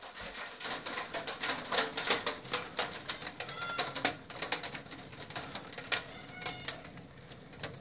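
Hailstones striking a house roof and window glass: a dense, irregular patter of sharp clicks and taps that thins out near the end.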